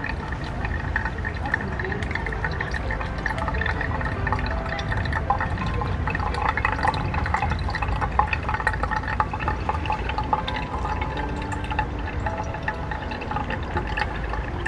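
Water being poured over freshly ground coffee to brew drip (pour-over) coffee, a steady pouring of liquid.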